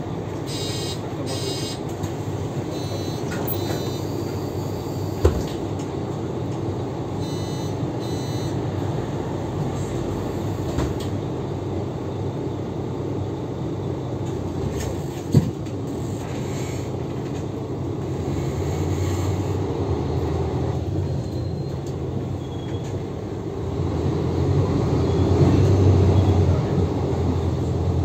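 Interior running noise of a Mercedes-Benz O530G Citaro articulated city bus under way, its diesel engine and ZF Ecomat automatic gearbox droning steadily. A few short electronic beeps sound in the first seconds, and the engine hum grows louder near the end as the bus pulls harder.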